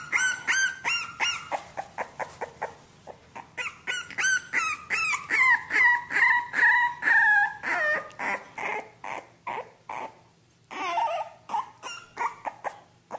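Young bulldog puppy whimpering and squealing in a rapid run of short, high-pitched cries, several a second, with a few longer drawn-out cries in the middle, thinning out over the last few seconds.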